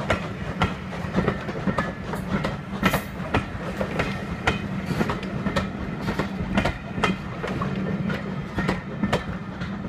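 Wheels of a line of passenger coaches rolling past close by, clicking over the rail joints about twice a second over a steady low rumble.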